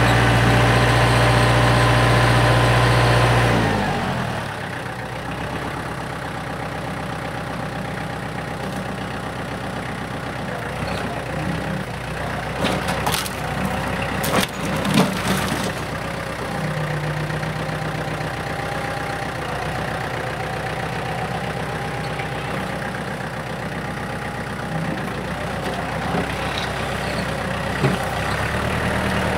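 Kubota compact tractor's diesel engine running at high revs as the front loader works a stump out of the ground, then dropping to a lower, steadier speed about four seconds in. A cluster of sharp cracks and knocks comes about halfway through.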